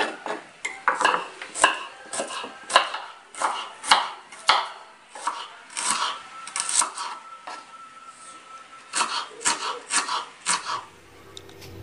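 Kitchen knife slicing chilies and shallots on a wooden cutting board: irregular sharp taps of the blade hitting the board, about one or two a second. The chopping stops shortly before the end.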